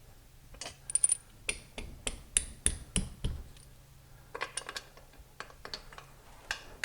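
Irregular sharp metal clicks and taps of intake manifold bolts and washers being handled and fitted, in two bursts with a short pause between.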